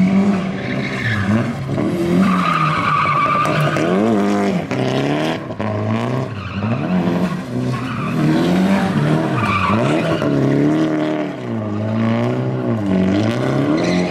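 A drift car's engine revs up and down over and over as the throttle is worked through the slides. Its rear tyres squeal and screech on the pavement at several points.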